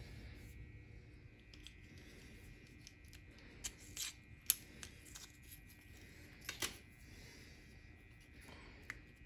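Small sharp clicks and light scraping as fingers handle a plastic N scale freight-car underframe and pick at the metal weight glued to it. The loudest clicks come in a cluster about four to seven seconds in, over faint room hum.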